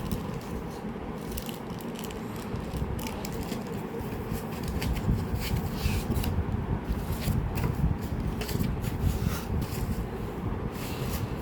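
Packaging being handled during an unboxing: irregular rustles, scrapes and small clicks over a steady low rumble.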